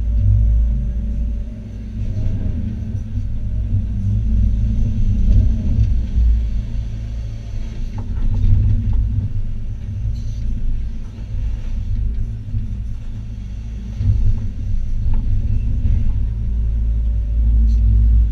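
Hitachi ZX280 excavator's diesel engine and hydraulics working under load, heard from inside the cab: a steady low rumble that swells and eases every few seconds, with a few faint knocks.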